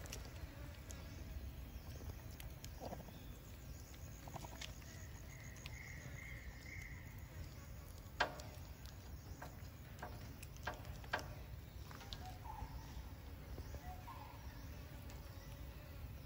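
Scattered sharp clicks and taps as macaques pick up and crack peanuts on a steel platform, the loudest about eight seconds in, over a steady low outdoor rumble. A faint high trill sounds a few seconds in, and two short chirps come near the end.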